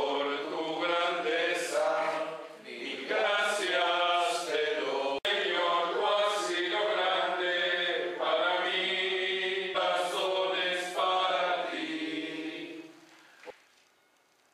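Voices singing a slow religious hymn together, with little or no instrumental backing; the singing fades out near the end.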